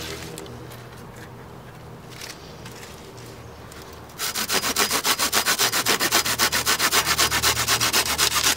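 A handsaw cutting through a small, dry dead-wood stick. It starts about four seconds in, after some quiet handling of the wood, and goes in quick, even strokes.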